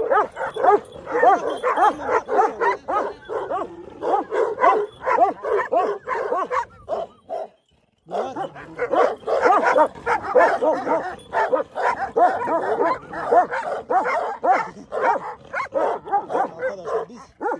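Several large livestock guardian dogs barking and yelping excitedly all at once, a dense, continuous chorus of short calls from dogs held back on leashes while facing another group of dogs. It breaks off for a moment about halfway through.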